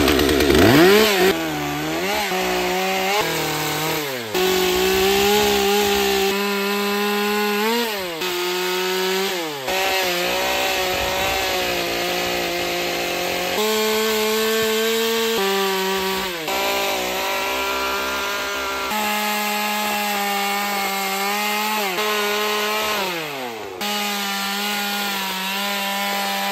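Small Stihl top-handle two-stroke chainsaw cutting into a wooden log, running at high throttle with its pitch dropping and climbing back several times as the throttle is eased and opened between cuts.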